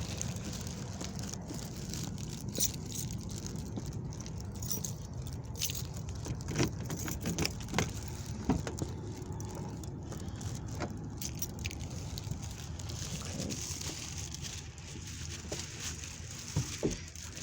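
Steady low vehicle rumble, with scattered clicks and jingling like handled keys.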